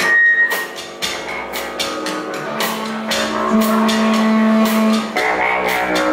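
Rock band playing live, an instrumental passage on drums, electric guitar, bass guitar and keyboard. The low end drops out briefly just after the start, and the full band comes back in harder about five seconds in.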